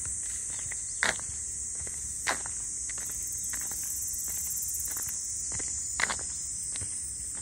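A steady, high-pitched chorus of insects, with a few footsteps on the field edge: one about a second in, one a little after two seconds, and one near six seconds.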